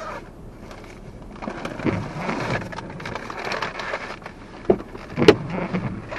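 Rain falling, heard from inside a car with its window rolled down, a steady hiss that swells about a second and a half in. Two sharp knocks come near the end.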